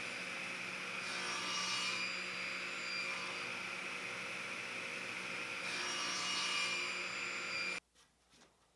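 Electric woodworking power tool running steadily while working oak, with the hiss swelling twice as the cut or pass bears on the wood. It cuts off abruptly shortly before the end, followed by a few faint clicks.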